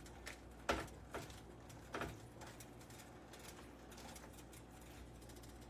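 Faint crackling from a pan of chicken cooking, with three soft knocks in the first two seconds.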